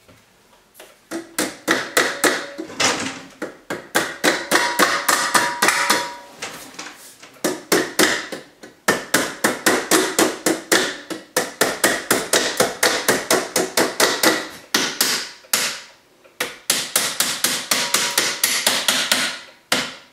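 Claw hammer striking a black metal stove pipe fitting in a rapid run of blows, several a second with a slight metallic ring, broken by a couple of short pauses.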